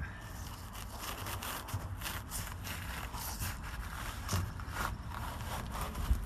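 Old roof insulation being scraped and pulled off the bare sheet-metal roof inside a car: an irregular run of short scratchy scrapes and clicks, with no steady rhythm.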